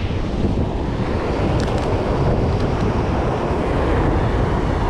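Wind buffeting the microphone in a steady, loud rumble over the rushing wash of ocean surf.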